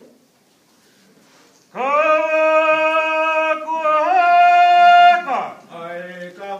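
Chanted ceremonial call of a Tongan kava ceremony. About two seconds in, one voice holds a long drawn-out note, lifts in pitch near the end and breaks off. A lower-pitched chanted call follows.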